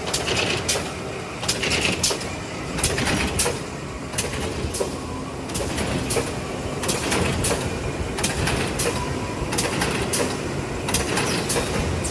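Automatic corrugated-box folder-gluer-stitcher machine running: a steady mechanical rumble with repeated sharp clacks at uneven intervals.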